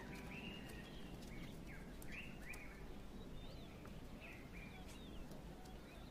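Faint, short, high-pitched chirping calls, a cluster in the first half and a few more later, over a quiet outdoor background.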